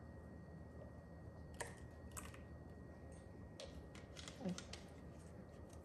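Faint light clicks and taps of a small glass bottle, its cap and a spice jar being handled on a counter: a couple of single clicks, then a quicker run of ticks about four seconds in.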